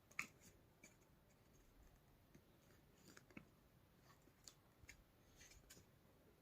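Near silence: room tone with faint, scattered small clicks and taps.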